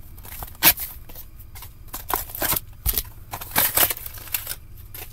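Upper Deck Allure hockey card box and its foil packs being opened and handled: a string of short tearing, crinkling and rustling sounds of cardboard and wrappers, the loudest about a second in and again in the middle.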